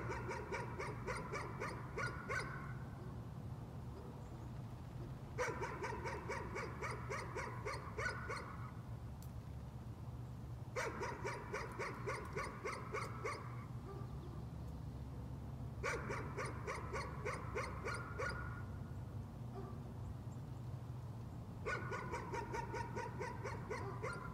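A dog barking in bouts of quick repeated barks, each bout about three seconds long, starting again about every five seconds. A steady low hum runs underneath.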